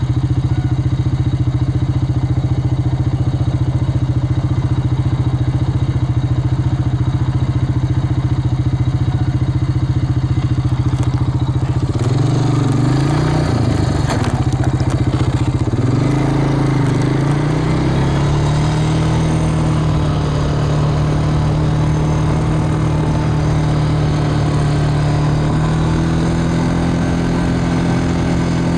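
An engine running steadily. About twelve seconds in its pitch wavers and shifts with a short burst of noise, then it settles at a slightly higher steady speed and steps up again near the end.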